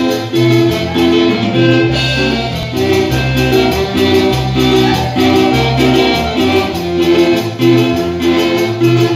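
Live cumbia played by a small band: a diatonic button accordion carries the melody in sustained chords over a plucked electric bass line, with percussion keeping a steady beat.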